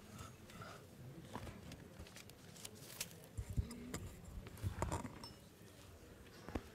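Faint bustle of people moving about a room: scattered footsteps, small knocks and rustles, over a low background murmur.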